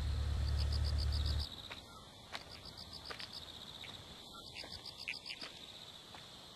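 Crickets chirping in short pulsed trills about once a second. A low hum stops abruptly about a second and a half in, and a few faint clicks follow.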